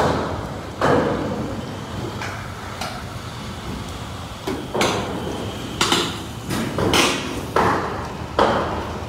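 A series of irregular knocks and bangs, about a dozen over several seconds, some coming in quick pairs, each fading briefly after the hit.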